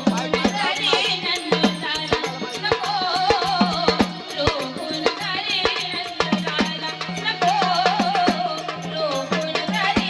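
Marathi gaulan folk music: a wavering melodic line over a steady hand-drum rhythm whose low strokes bend down in pitch, with a continuous jingling rattle of small percussion.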